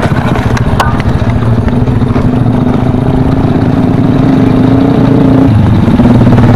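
Motorcycle engine running as the bike rides off slowly, its pitch rising gradually, then dropping suddenly near the end and holding steady.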